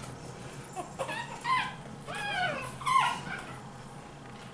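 Five-week-old Pekingese puppies whimpering: a handful of short, high whines between about one and three seconds in, several bending downward in pitch.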